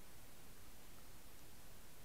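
Faint steady underwater hiss picked up by a submerged Water Wolf HD camera, with no distinct events.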